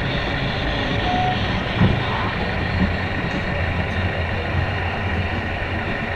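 Steady background hum and hiss of a model railway layout hall, with a single short knock about two seconds in.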